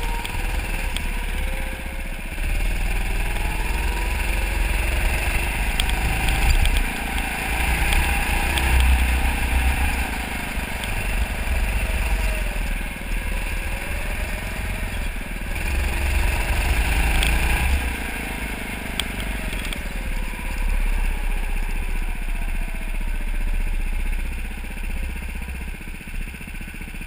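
Go-kart running on track, its engine pitch rising and falling repeatedly as it speeds up and slows through the corners, over a heavy low rumble.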